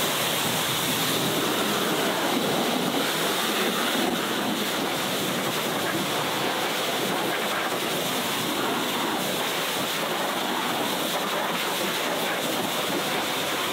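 Pressure washer jet rinsing soap suds off a car engine bay: a steady hiss of high-pressure spray spattering on the engine covers and plastics.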